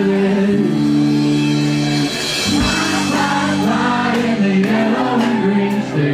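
Live band playing: a male lead singer singing over electric guitar, with regular cymbal hits in the second half.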